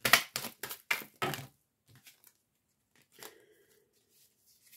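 Oracle cards being shuffled and handled: a quick run of about half a dozen short papery strokes in the first second and a half.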